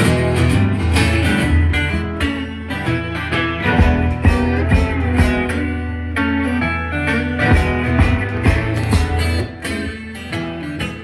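Blues band playing an instrumental stretch of the song: a guitar riff over a steady bass line and drum beat.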